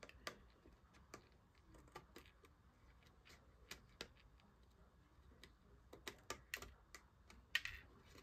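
Faint, irregular small clicks and snips: scissors trimming a die-cut paper flower, with a few louder clicks near the end.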